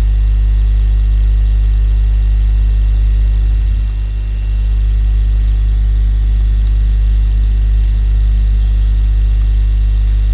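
Loud, steady electrical mains hum: a low buzz with a ladder of overtones, dipping slightly about four seconds in.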